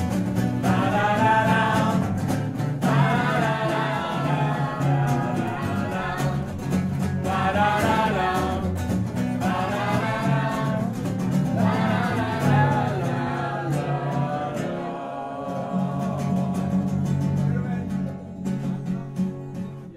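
Live acoustic band: strummed acoustic guitars under voices singing wordless "ba-da-da" phrases. The singing stops about fourteen seconds in, and the guitars play on alone, winding down to a final stop near the end.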